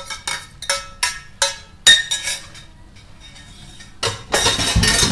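A metal spoon clinking against cookware, about eight quick ringing strikes, then a louder rush of noise about four seconds in, while ingredients go into a pot of soup.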